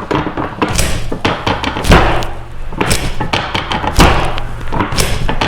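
A series of dull thumps, about one a second, the loudest about two and four seconds in.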